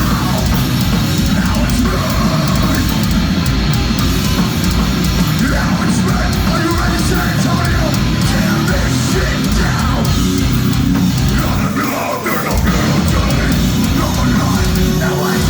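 Metalcore band playing live at full volume, heavy distorted guitars and drums, with a brief drop in loudness about twelve seconds in before the full band comes back.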